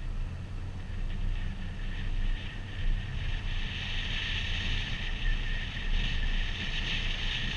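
A car driving at low speed, heard from a hood-mounted camera: steady low wind rumble and road noise on the outside microphone. A high, steady hiss with a thin whine in it comes up about three seconds in.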